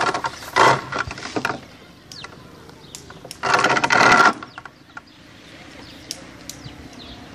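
Playground swing's metal chains and hangers creaking and clinking as the plastic bucket seat swings back and forth. There is a loud creaking stretch at the start and another about halfway through, with light clinks between.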